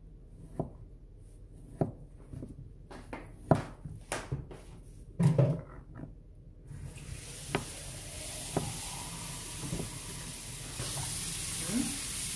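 Kitchen knife chopping luncheon meat on a plastic cutting board: irregular sharp knocks of the blade hitting the board, several in the first half and a few more later. About halfway through a steady hiss comes in and grows louder near the end.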